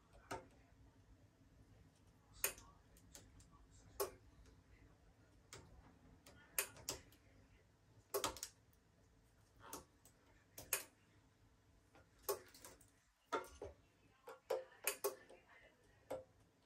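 Sharp, irregularly spaced clicks and light taps of small hand tools and parts on a smartphone being worked on during a screen repair, more than a dozen of them.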